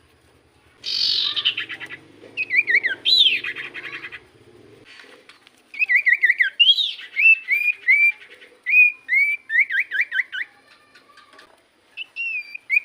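Common iora (cipoh) singing: repeated clear whistled notes that slur downward, strung into quick series. A harsh, buzzy burst comes about a second in.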